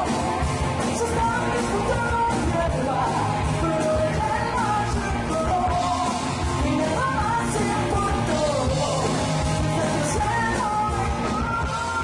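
Rock band playing live: electric guitars and drums, with a singer's voice carrying the melody over them.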